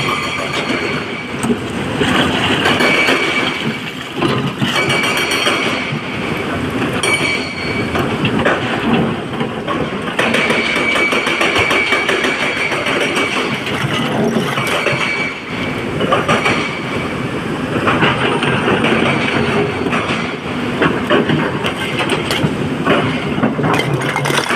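Excavator at work loading a dump truck: its engine runs under a continuous metallic clatter and knocking, with a high squeal that comes and goes several times.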